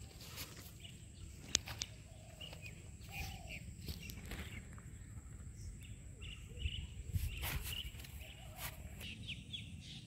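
Faint outdoor ambience: a low steady background rumble with a few small scattered clicks, and a distant bird calling briefly a few times.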